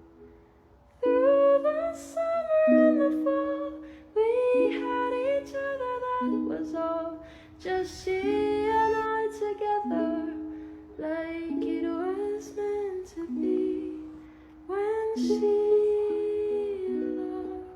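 Background music: a ukulele plucking slow chords under a soft, wordless hummed vocal melody, in phrases with short gaps between them.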